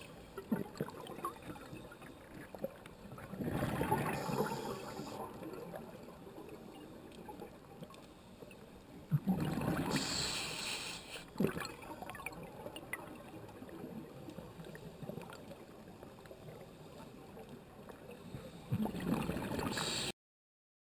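Underwater recording of a scuba diver's regulator breathing: three loud gushes of exhaled bubbles, a few seconds apart, over a low hiss with scattered faint clicks. The sound cuts off abruptly near the end.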